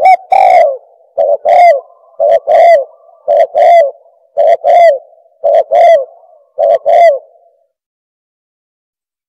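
Spotted dove cooing: seven two-note coos about one a second, stopping about seven and a half seconds in.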